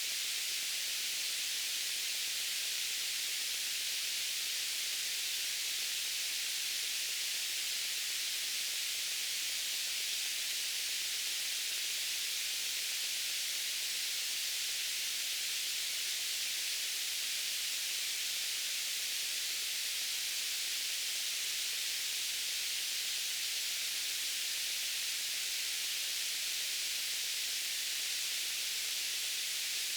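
Steady white noise: an even, high-pitched hiss with little low end, not changing at all.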